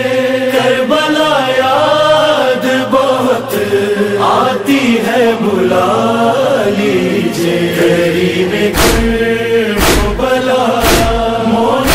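Devotional chanting, long held notes sliding from one pitch to the next. From about nine seconds in, deep thumps about once a second beat along under it.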